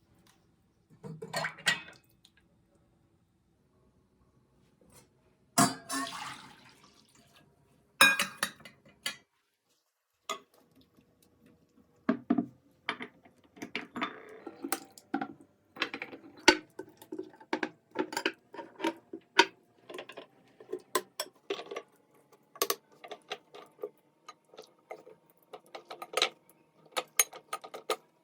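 Cutlery and dishes clinking and knocking. A few scattered knocks at first, then a busy, irregular run of taps from about twelve seconds in.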